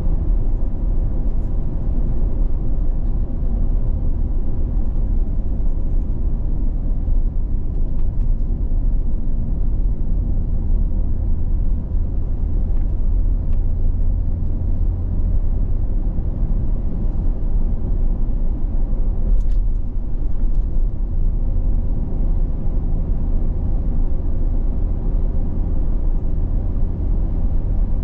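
Steady low rumble of a vehicle's engine and tyres, heard from inside the cabin while cruising at a constant speed.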